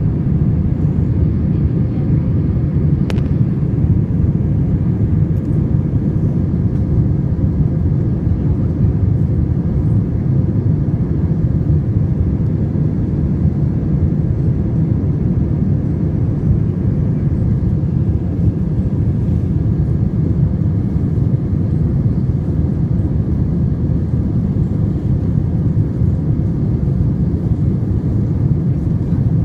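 Jet airliner in flight heard from inside the cabin: a steady, low-pitched rush of engine and airflow noise with no change in level.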